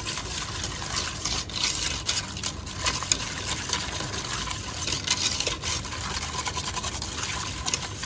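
Wire whisk beating a thick ketchup-based sauce in a stainless steel pot: quick, continuous strokes of wet scraping with the wires rubbing against the metal.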